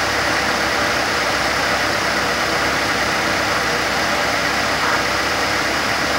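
Fiat Fire engine idling steadily, heard close up at its belt-driven air-conditioning compressor, which is still engaged and running. It is about to cycle off normally under thermostat control.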